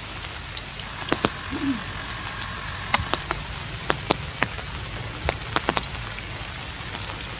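Outdoor ambience: a steady hiss with about a dozen sharp, irregular clicks and taps.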